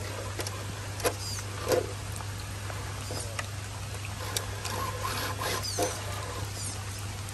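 Scale RC crawler working over wet rock: a few sharp clicks and knocks from its tyres and chassis against the stone, over a steady low hum, with faint high chirps.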